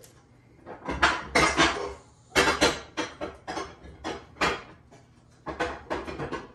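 Casserole dishes clanking and clattering against each other as one is pulled out of a low kitchen cabinet: a quick run of sharp knocks and rattles, with a short pause about five seconds in.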